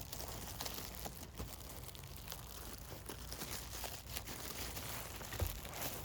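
Plastic bag crinkling and rustling as it is pulled off an animatronic Halloween figure, with a dull thump about five seconds in.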